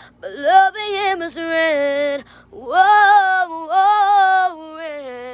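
A woman singing unaccompanied in two phrases of held, gliding notes, with a short breath gap between them.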